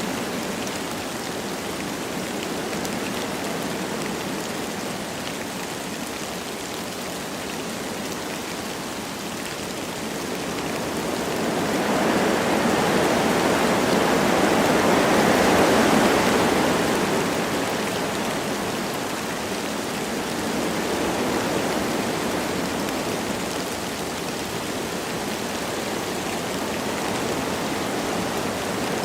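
Wind blowing through forest trees with light rain falling, a steady rushing noise. A stronger gust swells up in the middle and dies back down.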